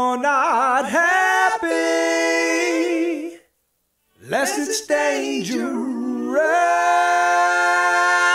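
Soundtrack song in an a cappella passage: sung voices holding long notes in harmony, breaking off briefly about three and a half seconds in, then coming back in on another sustained chord.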